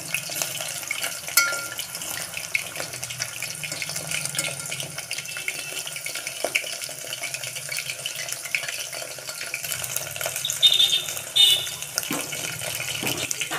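Coated chicken nuggets deep-frying in hot oil in an aluminium pot: a steady sizzling crackle, with a few louder pops. The flame has just been turned to low so the chicken cooks through inside.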